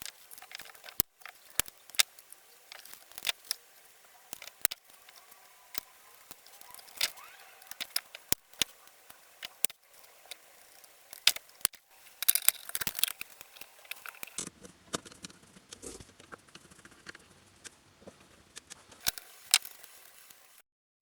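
Scattered sharp clicks and light taps of small hard objects being handled, with a denser, scratchier cluster of them about twelve seconds in.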